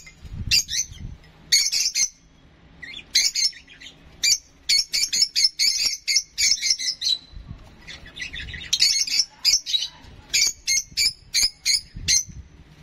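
A young lovebird squawking in rapid, short, repeated calls while it is hand-fed formula from a syringe: the begging calls of a hand-reared chick at feeding.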